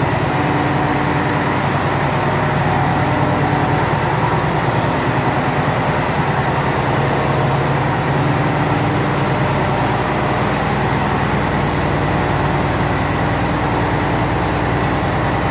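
Loud, steady drone of a ship's engine room with its engines and machinery running: a deep hum with many steady tones layered over it, unchanging throughout.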